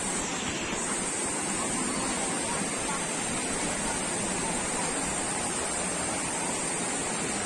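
Steady rush of a small waterfall and the shallow stream running over rocks below it.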